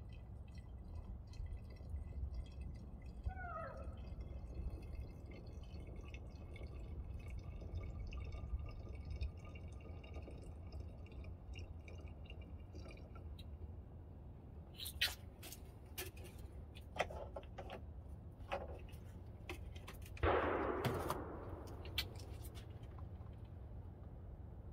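Liquid trickling and dripping as it is poured slowly from a plastic jug into a small plastic bottle. There are scattered clicks in the second half and a louder, splashy gush about twenty seconds in.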